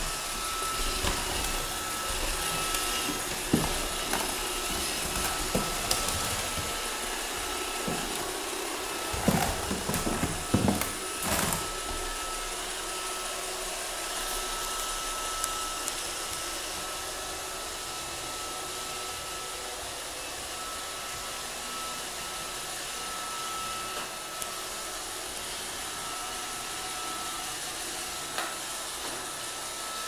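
Roomba robot vacuum running on a hardwood floor: a steady whirring hiss with a thin high whine over it. A few sharp knocks come close together about ten seconds in.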